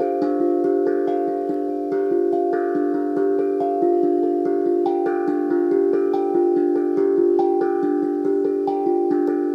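Hobojim hank drum, a steel tongue drum tuned to pentatonic D minor (D-F-G-A-C-d-f-g), played with two mallets in quick alternating strokes. The struck notes ring on and overlap into a continuous bell-like melody.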